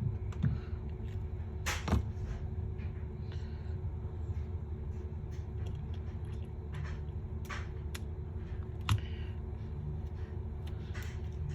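Occasional small clicks and taps of phone parts and tools being handled on a work surface, over a steady low background hum.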